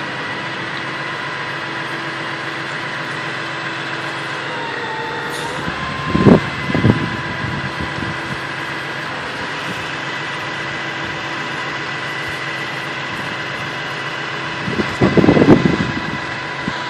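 Utility bucket truck's engine running steadily, with a steady high whine over it. The whine dips briefly in pitch about five seconds in, and two short louder bursts of noise come about six seconds in and again near the end.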